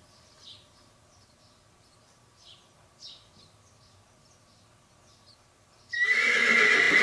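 Faint bird chirps, then a sudden loud equine whinny about six seconds in, held to the end.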